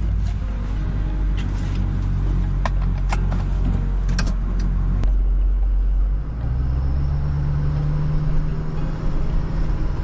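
Ford Super Duty pickup truck's engine running, heard from inside the cab; the engine note steps up in pitch about six seconds in as the truck gets moving. A few sharp clicks sound in the middle.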